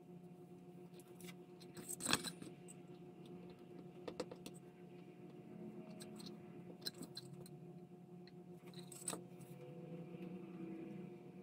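Small plastic model parts and a hot glue gun being handled on a workbench: a few light knocks and clicks, the sharpest about two seconds in, over a steady low hum.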